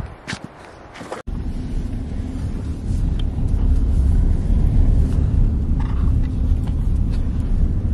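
A few light crunches and clicks, then an abrupt cut to a car driving. Its engine and tyres make a steady low rumble, heard from inside the car.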